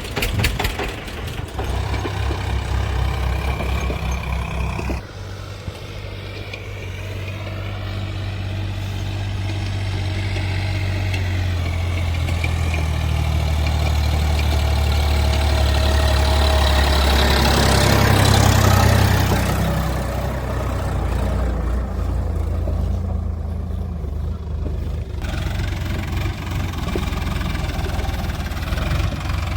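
Heavy diesel engine of a tractor or backhoe-type machine running. Its note dips about five seconds in, builds gradually over the next dozen seconds as it works harder, then eases back near the end.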